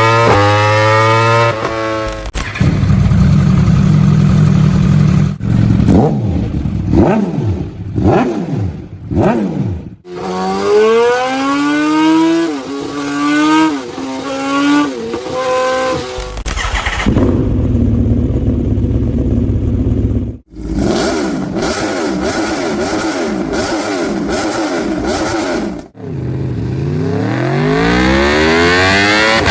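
Several different sport motorcycles' exhausts heard one after another with abrupt cuts between them: loud revving and hard acceleration, the pitch climbing and dropping back again and again as the bikes shift up through the gears.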